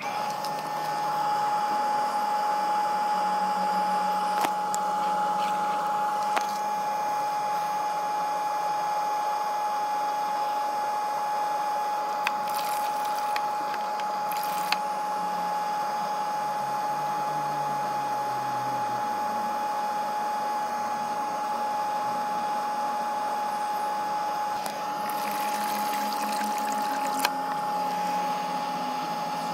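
Bestway sand filter pump's electric motor switched on at the start and running steadily with a constant whine, water rushing through it and its hoses as it flushes the filter sand.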